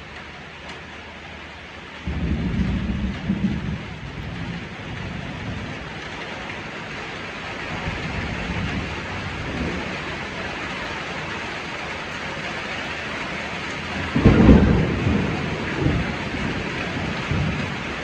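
Rain falling steadily, getting heavier after the first few seconds, with thunder rumbling over it. A loud rumble breaks in suddenly about two seconds in, and the loudest comes about fourteen seconds in, with fainter rumbles between.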